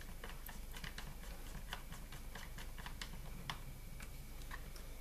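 Small screwdriver driving screws back into a laptop's plastic bottom case: a run of faint, irregular clicks and ticks as the bit turns and seats in the screw heads.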